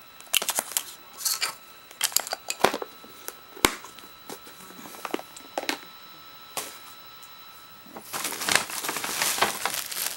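Craft supplies being handled on a tabletop: scattered clicks and light knocks of plastic items being picked up and set down, with one sharp click a few seconds in. Near the end comes about two seconds of plastic bag crinkling.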